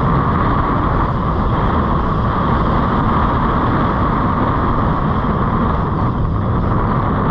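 Steady rush of surf breaking and washing up a sandy beach, mixed with wind blowing on the microphone.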